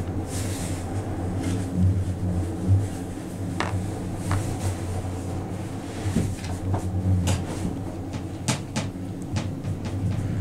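Ride inside a moving 8-seat Doppelmayr gondola cabin: a steady low hum with scattered light clicks and knocks from the cabin, several in the second half.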